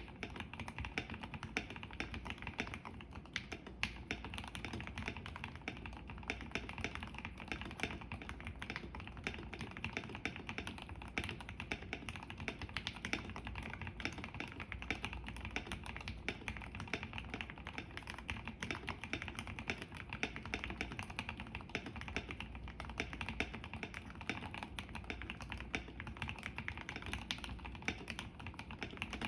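Continuous fast typing on a KBD75 V3.1 mechanical keyboard with an aluminium plate and Gateron CJ linear switches: a dense, unbroken run of key clacks.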